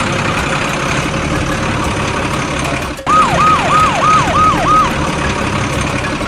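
A steady mechanical rumble like a running vehicle engine. About three seconds in, a siren-like effect gives six quick falling tones, about three a second.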